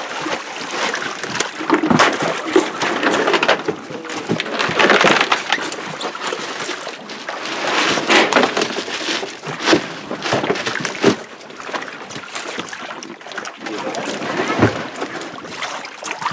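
Water splashing and sloshing on a wet plank floor, with scattered knocks and clatter from crates of harvested milkfish being handled.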